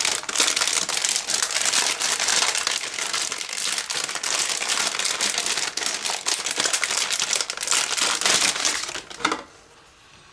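Silvery anti-static plastic bag crinkling and rustling as it is handled and lifted out of foam packing; the crinkling stops about nine seconds in.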